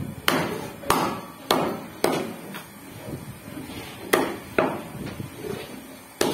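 Meat cleaver chopping goat meat on a wooden chopping block: a run of four sharp chops about half a second apart, a lighter one, then after a pause a few more chops.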